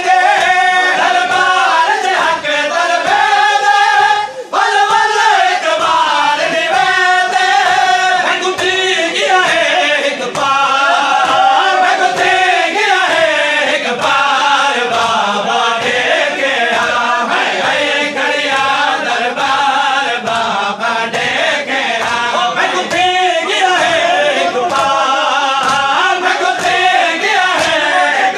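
Male voices chanting a noha, a Shia lament, in a rising and falling melody, over a steady beat of rhythmic chest-beating (matam) by the mourners.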